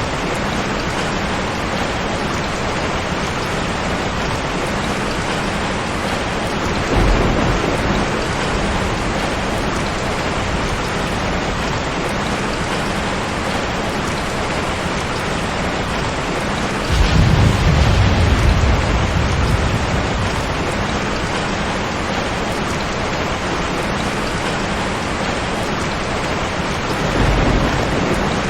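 Steady heavy rain with rolls of thunder. A short rumble comes about seven seconds in, the loudest and longest rumble starts just past halfway and fades over a few seconds, and another short one comes near the end.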